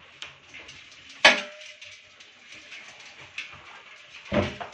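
Handling of live crabs taken from a water tank by hand. About a second in there is a single sharp clack that leaves a short ringing tone, and near the end a dull, heavier thump, with a few small ticks between.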